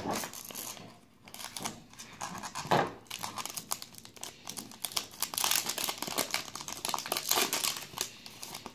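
A trading card pack's wrapper crinkling and tearing as it is pulled open by hand; the pack is hard to open.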